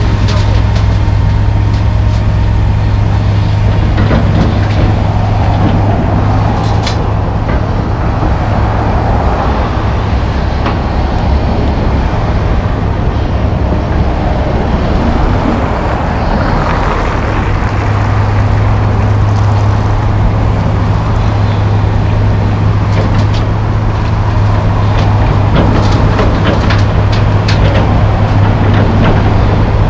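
John Deere 470G track excavator's diesel engine running as the machine digs and swings loads into a dump truck: a loud, steady low drone that weakens for a while in the middle and comes back strongly later. A few sharp knocks sound over it.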